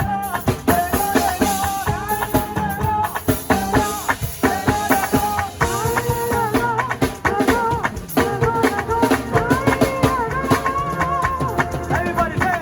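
Live band rehearsing a song: drums and a shaker-like rattle keep a steady beat under a sung or played melody line.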